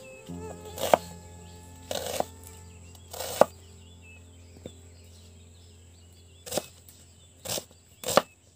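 Kitchen knife slicing through a red onion and hitting a bamboo chopping board, seven or eight single cuts about a second apart at an uneven pace.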